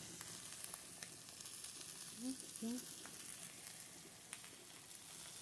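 Matrinxã fish sizzling on a grill over a wood fire: a steady hiss with scattered pops and crackles. A voice makes two short murmured syllables a little past two seconds in.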